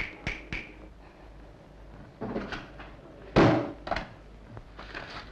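A few knocks and thuds, the loudest a sudden slam about three and a half seconds in.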